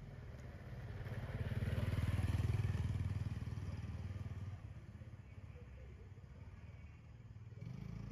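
Motor scooter engine passing by: a low hum that builds from about a second in, is loudest around two to three seconds in, then fades away.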